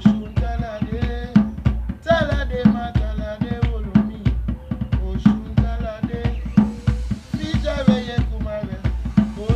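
Music with a drum-kit beat, bass drum and snare, under a melody that slides up and down in pitch.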